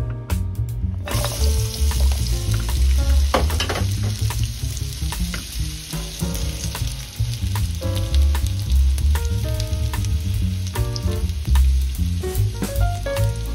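Raw potato chunks sizzling in hot oil in a nonstick frying pan. The sizzle starts abruptly about a second in, as the potatoes go into the oil, then runs steadily with scattered small crackles.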